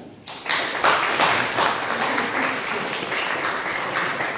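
Audience applauding: a dense patter of many hands clapping that swells within the first second, then holds steady and eases slightly near the end.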